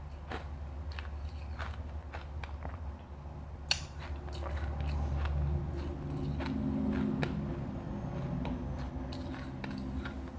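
Refrozen crushed ice being bitten and chewed close to the microphone: irregular crisp crunches, with one sharper crack about four seconds in, over a steady low hum.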